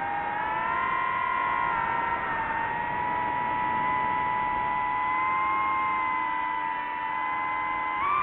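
DJI FPV quadcopter's motors and propellers whining steadily, several close pitches drifting slightly together.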